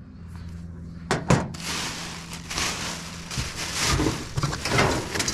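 Scrap pieces being handled and shifted: two sharp knocks about a second in, then rustling and clattering with more knocks, over a steady low hum.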